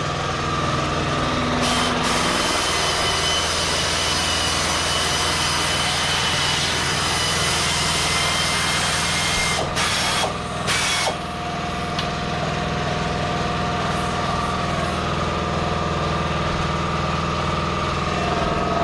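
An engine idling steadily, with a long hiss of escaping air starting about two seconds in and ending near the middle, then a couple of short hissing blasts.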